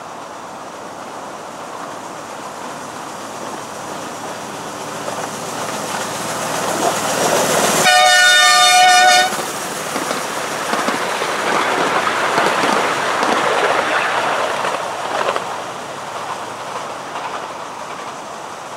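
A 7¼-inch gauge miniature train, hauled by a diesel-outline locomotive, running past, its wheels rumbling and clattering on the track. The locomotive's horn sounds one blast about eight seconds in, lasting over a second, the loudest sound here. The running sound then fades as the train moves away.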